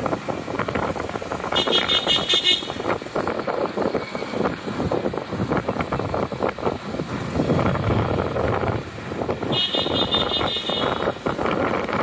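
Busy street traffic with motorcycle and car engines running close by. Two short bursts of high-pitched horn beeping come about two seconds in and again near ten seconds.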